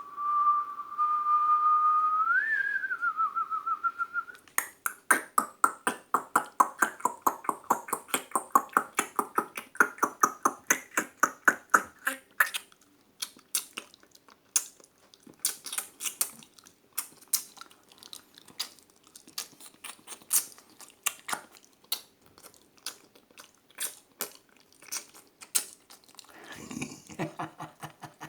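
Mouth-made bird imitation: a held whistle that lifts briefly in pitch, then a fast pulsing whistled trill, then a long run of sharp clicking mouth sounds.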